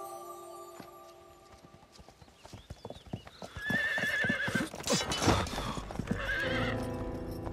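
A horse galloping past, its hoofbeats on a dirt track starting about two seconds in and growing louder, with the horse whinnying twice, a long wavering whinny midway and a shorter one near the end. Background music fades under the hooves and comes back in near the end.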